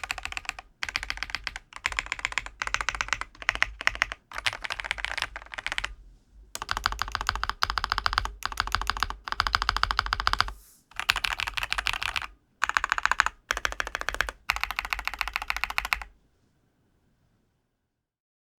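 Fast typing on a Royal Kludge M87 mechanical keyboard: rapid keystroke clicks in bursts of a second or two with short pauses, stopping a couple of seconds before the end.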